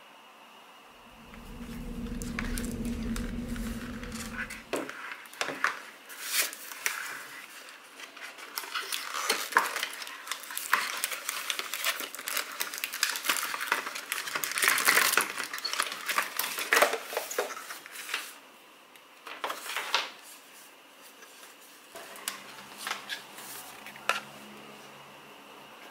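Unboxing: a cardboard box and its packaging handled on a wooden desk, with irregular clicks, knocks and rustling. For a few seconds near the start there is a low steady hum.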